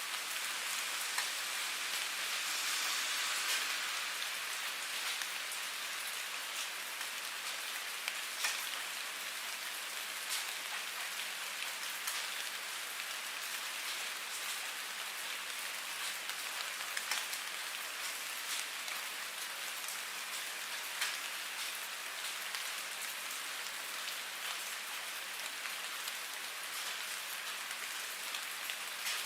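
Steady rain falling on a hard surface: a continuous hiss with scattered louder individual drops splashing.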